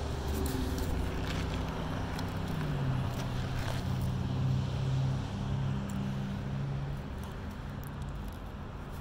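Road traffic: a motor vehicle's engine hum that swells a couple of seconds in and fades toward the end.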